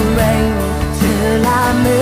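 Live pop-rock band playing a song: a bending melody line over bass and drum strokes, at full concert level.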